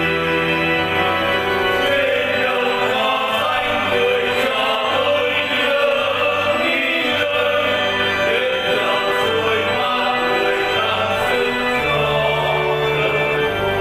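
A Vietnamese hymn sung by a choir over instrumental accompaniment, with long held notes above a sustained low bass.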